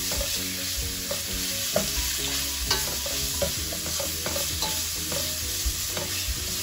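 Sliced pork with garlic and onion frying in oil in a stainless steel pan, sizzling steadily, while a plastic spatula stirs it, scraping and tapping against the pan now and then, with a couple of sharper knocks in the first half.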